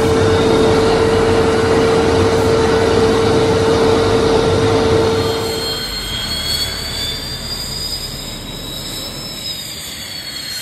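Jet engine noise heard aboard an aircraft in flight: a loud, steady rush with a steady hum. About five and a half seconds in it drops to a quieter Fiat G.91 jet running on the ground, its high turbine whine rising slightly and then falling.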